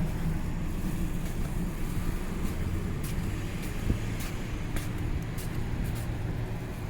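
Steady low rumble of wind and city street traffic, with scattered light ticks and one sharper click about four seconds in.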